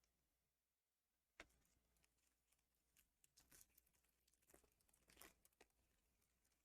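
Faint crinkling and tearing of a trading card booster pack's foil wrapper being opened by hand, with a single sharp click about a second and a half in and a run of crackles in the middle.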